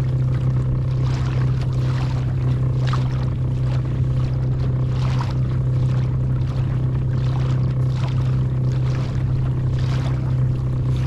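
Boat motor running at a steady speed: a constant low drone with even overtones, and irregular hissing rushes over it.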